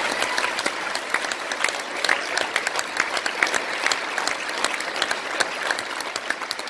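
Audience of a large seated banquet applauding steadily, a dense patter of many hands clapping.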